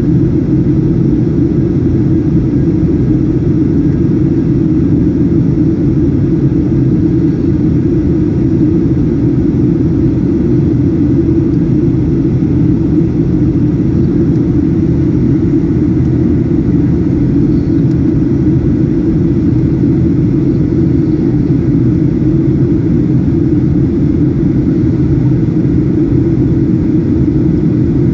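Cabin noise of a Boeing 737-800 in flight, heard from a window seat: the CFM56-7B engines and the airflow over the fuselage make a steady, low, even noise.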